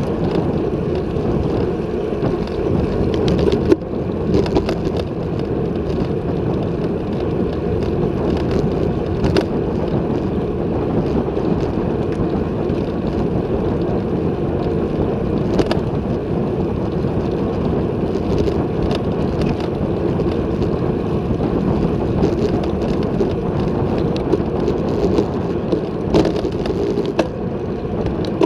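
Wind rushing over the microphone of a handlebar-mounted camera on a road bike riding at about 30–37 km/h, with tyre noise on the tarmac underneath. A few short knocks stand out along the way.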